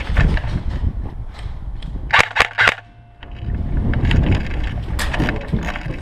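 Airsoft gun firing three quick sharp shots about two seconds in, over a steady low rumble of wind and movement on the microphone.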